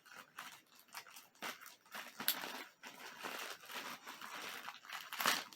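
Packaging crinkling and tearing as a yarn package is opened by hand: an irregular run of rustles and rips, with a sharp snap about two seconds in and a louder rustle near the end.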